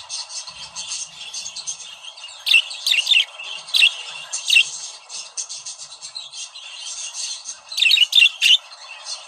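Budgerigars chattering in a fast, continuous warble, broken by loud, sharp falling squawks: a run of about five some two and a half seconds in, and three more near the end.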